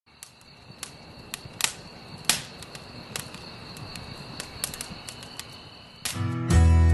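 Wood campfire crackling, with irregular sharp pops and snaps over a soft hiss, fading in at the start. Acoustic guitar music comes in near the end.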